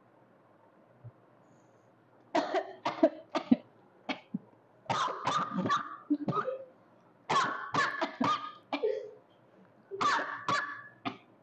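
A person coughing in four fits of several sharp coughs each, brought on by snuff taken up the nose.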